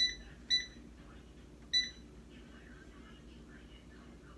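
Power AirFryer XL's digital control panel beeping three times, short electronic beeps, as its temperature button is pressed to step the setting up to 400 degrees.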